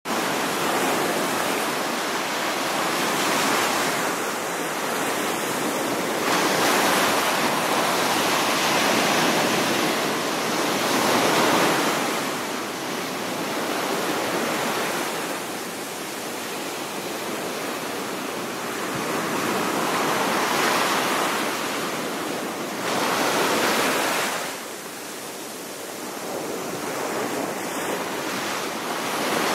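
Ocean waves surging and washing on the shore, a continuous surf hiss that swells into a louder break every several seconds and then eases off.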